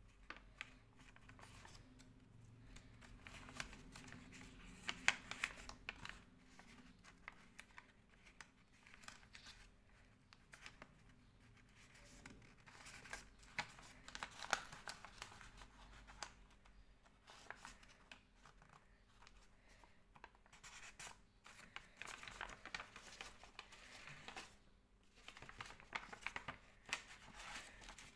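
A sheet of paper being folded and creased by hand: faint, irregular rustling and crinkling.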